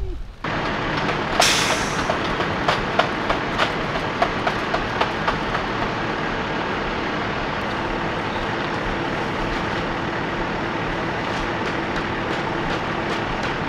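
Utility bucket truck's engine running steadily to power the boom, with a run of sharp clicks, about three a second, for a few seconds near the start.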